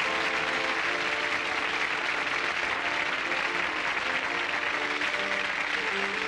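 Studio audience applauding over the sitcom's closing theme music, with steady clapping under sustained instrumental notes.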